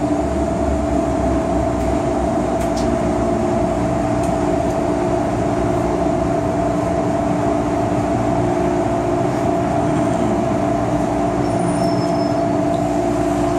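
MTR M-Train metro car heard from inside the cabin, running into a station and slowing to a stop. Steady motor tones sit over the rumble of wheels on rail, with a brief high squeal near the end.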